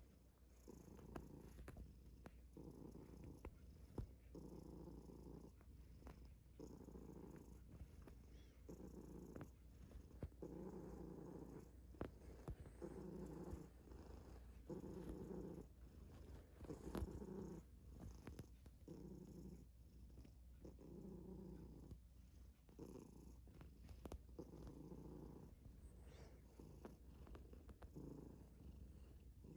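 Domestic cat purring steadily, a relaxed, contented purr that swells and eases with each breath, about once every second and a half. A few small clicks sound over it.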